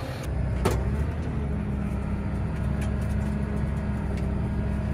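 Bateman self-propelled crop sprayer's diesel engine running steadily as the machine drives across the field, with a single sharp click about half a second in.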